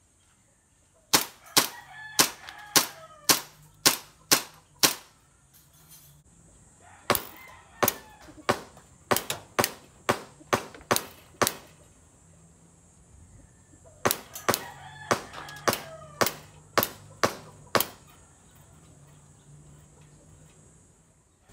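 WE Hi-Capa 5.1 gas blowback airsoft pistol firing three quick strings of about ten sharp shots each, with short pauses between strings. A rooster crows twice in the background.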